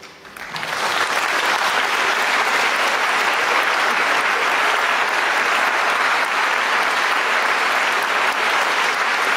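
Audience applauding at the end of a live song performance. The clapping swells up within the first second and then holds steady.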